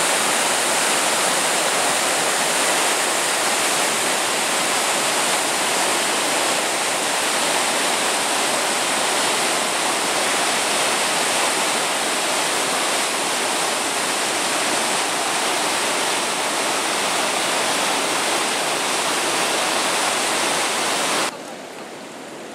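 Flood-swollen river's white water crashing over a low waterfall and through rapids: a steady, loud rush of water. Near the end it drops suddenly to a quieter rush.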